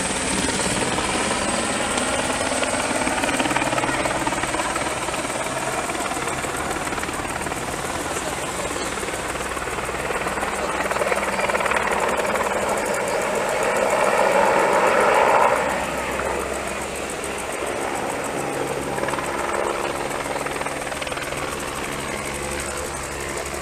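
Firefighting helicopter in flight with a water bucket slung beneath it, a steady rotor and engine drone that grows louder for a few seconds past the middle and then drops back.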